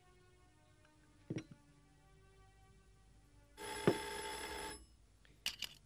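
Old-style desk telephone's bell ringing for about a second, followed by a brief second jingle near the end. A soft knock about a second in.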